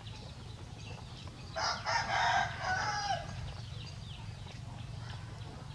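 A rooster crowing once. The crow starts about a second and a half in, lasts under two seconds, and drops in pitch at the end.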